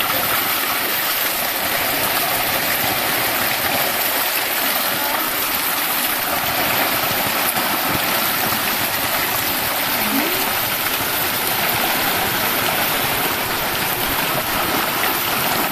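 Steady rush of a small stream running over rocks, an even hiss that holds level throughout.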